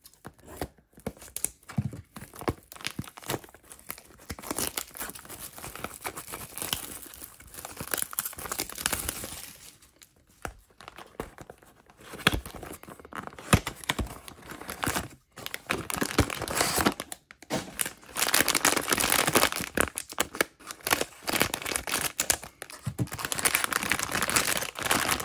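Plastic-wrapped cardboard blind box being unwrapped and opened, with crinkling and tearing throughout. Toward the end a foil bag crinkles as it is pulled out and torn open.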